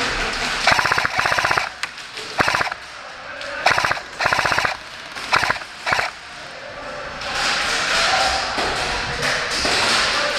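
Airsoft electric gun firing a string of short full-auto bursts, each a rapid clatter of shots. There are about six bursts in the first six seconds, the first and longest lasting about a second.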